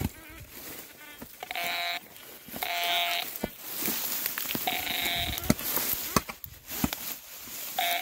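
Metal detector giving short buzzing target tones, three times with a fourth just starting at the end, as it sweeps over buried metal, with dry grass rustling against the coil.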